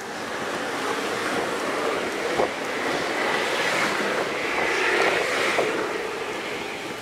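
Rushing noise of a vehicle passing along the street, swelling gradually to a peak about five seconds in and then fading.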